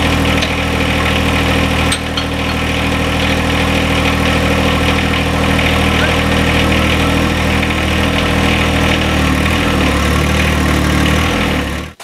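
John Deere 1025R compact tractor's three-cylinder diesel engine idling steadily. It cuts off abruptly just before the end.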